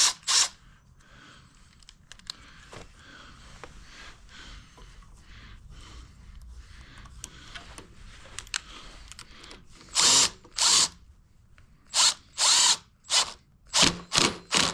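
Power drill run in a burst at the start, then in a series of five or six short bursts from about ten seconds in, driving a fastener home. Faint clinks of hand work lie between.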